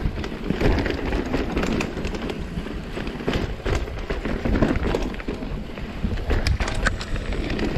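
Mountain bike riding fast down a dirt trail: a steady rumble of tyres and rushing air, with frequent sharp clicks and rattles as the bike jolts over bumps.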